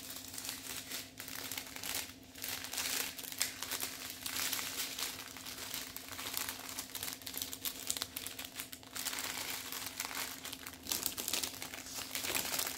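Small clear plastic bags of diamond-painting drills crinkling and rustling as they are handled, in irregular bursts, over a faint steady hum.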